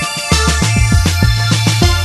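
Background music with heavy bass and a fast electronic drum beat.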